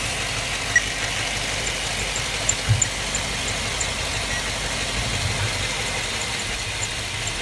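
2007 GMC Yukon's V8 engine idling steadily, with a few light knocks in the first three seconds. The engine is running only on what is left in the battery, because the alternator puts out almost no voltage and is not charging.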